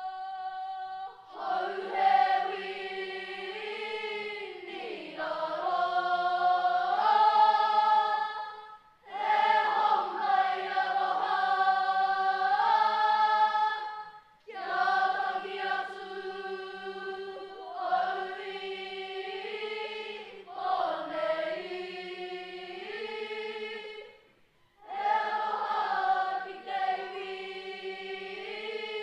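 Children's kapa haka group singing a waiata together in long held phrases, with brief pauses between phrases.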